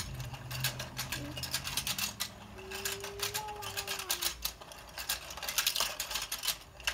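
Toy fishing game's motorised plastic pond turning with rapid, irregular clicking and rattling, while plastic fishing rods tap against the fish.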